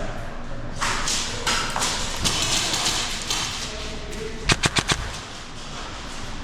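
Airsoft gun firing one quick burst of about five shots, about halfway through. The shots come as sharp cracks in rapid succession, and the burst is the loudest sound here. Rustling, scuffling noise runs before it.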